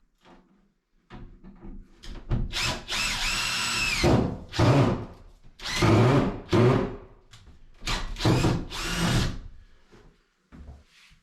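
Power drill driving screws in a series of runs: a longer one of about two seconds whose motor whine rises and then holds, followed by four or five short bursts.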